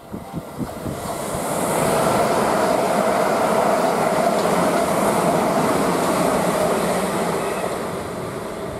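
A Southern Class 377 Electrostar electric multiple unit passes close by at speed. A rush of wheel and rail noise builds over about two seconds, with a few clicks from the wheels near the start. The rush holds steady with a faint steady tone through it, then eases off near the end.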